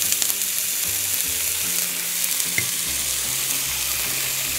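Pan-seared sole fillets sizzling hard as a ladle of fish stock bubbles in the hot oil around them, a steady, dense sizzle.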